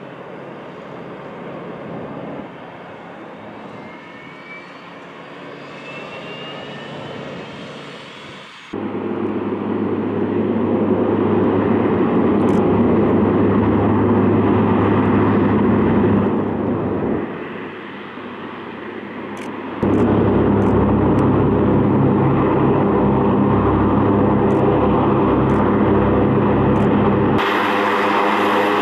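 MQ-9 Reaper's turboprop engine and pusher propeller running with a steady drone, across several edited shots. It is much louder from about nine seconds in, and drops back briefly between about 17 and 20 seconds.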